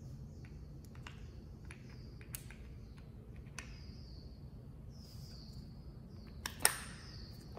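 Light metal clicks and taps as a car turner's replacement wheel and its bolt are handled and seated in the drive-unit bracket, with one sharper click near the end.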